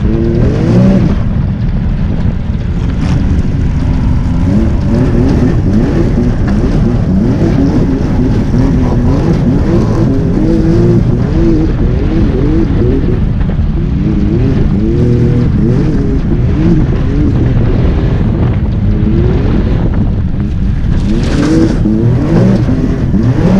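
ATV engine running under load as it is ridden through snow, revving up and down again and again. A burst of hiss comes near the end as snow sprays past.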